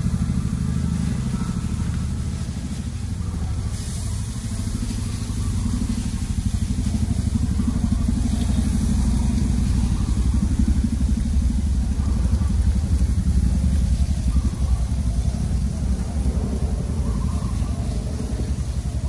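Helicopter heard outside: a loud, steady, rapid thudding of the rotor over a deep drone, growing louder a few seconds in and staying strong.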